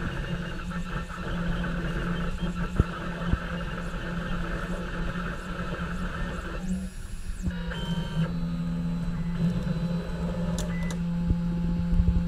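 Printrbot Play 3D printer running a print: its stepper motors whine in steady tones that change pitch from one move to the next, over a constant low hum, with a few light ticks.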